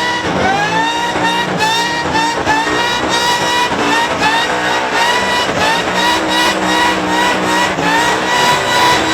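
Supercharged engine of a One Tonner ute being revved hard again and again, the blower whine sweeping up to a high scream with each rev and levelling off. In the last few seconds the revs are held high.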